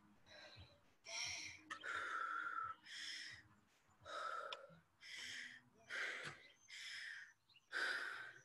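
A woman breathing hard and fast, catching her breath after an all-out cardio interval, with about one audible breath every second.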